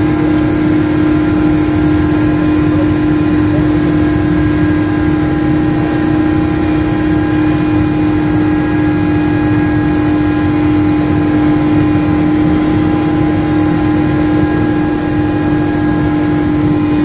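Mi-8MTV helicopter in flight, heard inside the cockpit: its twin turboshaft engines, gearbox and rotor make a loud, steady drone, with a strong steady hum and several fainter higher tones over a low rumble that do not change.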